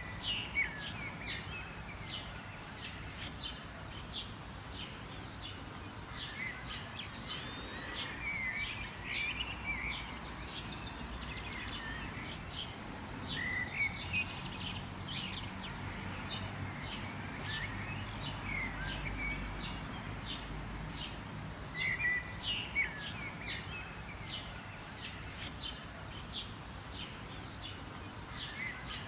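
Several birds chirping and calling, many short chirps and whistles throughout, over a steady low background rumble.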